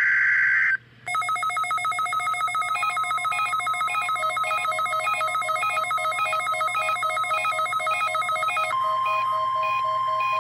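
NOAA Weather Radio alert tones through a Midland WR400 weather radio's speaker: a short screechy SAME digital header burst, a brief gap, then a fast-pulsing electronic alert of several beeping notes. About nine seconds in, a steady single tone, the weather radio warning alarm tone, joins the pulsing.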